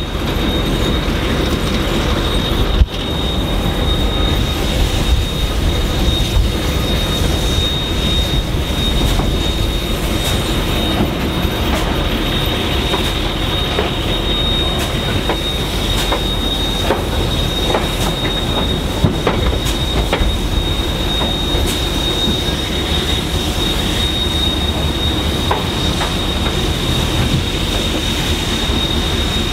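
Passenger train carriages rolling along the track: a steady rumble with a constant high-pitched squeal and scattered clicks from the wheels and rails.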